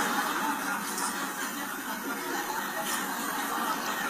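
An audience laughing together: a steady wash of many people's laughter that keeps going without a break.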